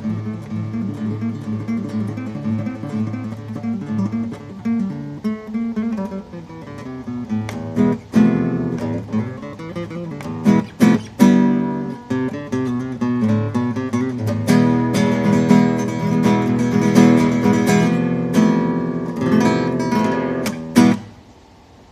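Acoustic guitar playing a Spanish-style riff. It opens with picked notes, then single hard strums, and from about two-thirds of the way through turns to fast, dense strumming that stops abruptly just before the end.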